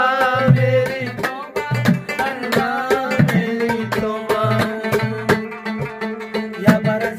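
Pashto folk song: a man singing with a wavering, ornamented voice over a rubab's plucked strings, with a drum keeping a steady beat.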